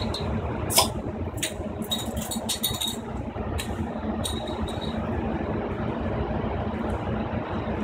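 A plastic bottle crackling and clicking as it is handled and its cap is worked open: a scatter of sharp clicks over the first four or five seconds, loudest about a second in. A steady low rumble sits underneath throughout.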